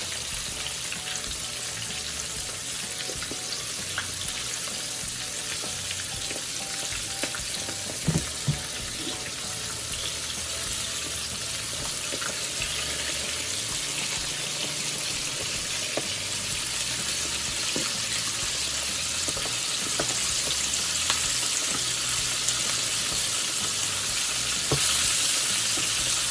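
Flour-coated chicken pieces sizzling in hot oil in a skillet on fairly high heat, with scattered pops. The frying grows gradually louder, and there are two sharp pops about eight seconds in.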